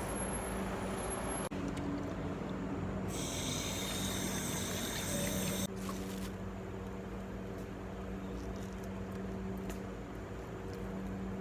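Tap water running as a hiss for a few seconds in the middle, over a steady low hum.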